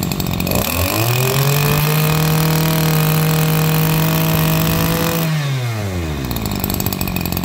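Small Maruyama brush cutter engine revved from idle to full throttle about half a second in. It holds high and steady for about four and a half seconds, then drops back to idle.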